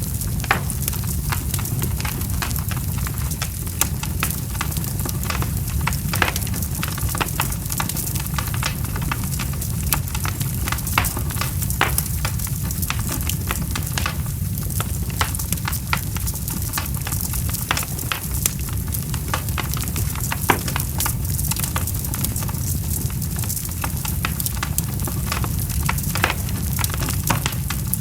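Fire burning with many small crackles and pops over a steady low rumble.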